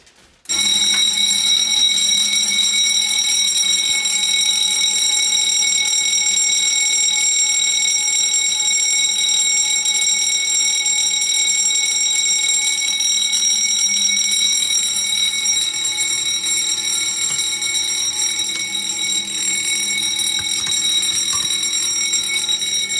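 Electric fire alarm bell, a Wheelock, ringing loudly and continuously after a smoke detector on the system is tripped. It starts about half a second in.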